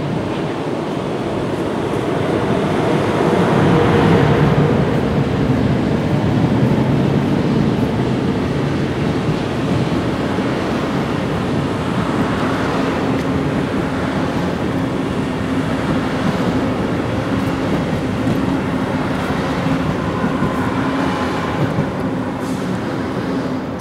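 Electric-hauled Intercity train rolling past: a dense rumble of wheels on rail and passing coaches, loudest a few seconds in as the locomotive goes by. A steady electric hum joins in about halfway through.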